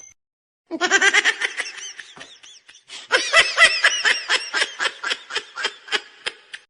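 A person laughing hard in quick repeated bursts, in two bouts: the first starts just under a second in and fades, the second starts about three seconds in, louder, and tails off near the end.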